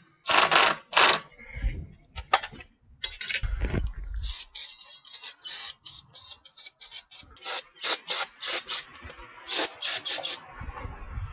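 Aerosol spray can hissing in a series of short bursts, with a few dull low thumps in between.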